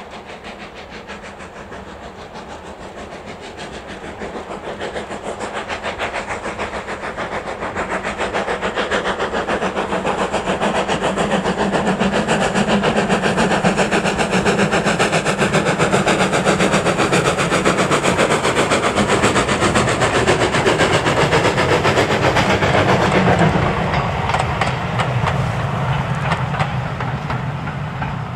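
Steam locomotive and its train approaching and running past: the sound builds over the first ten seconds, stays loud, then falls away about 24 seconds in.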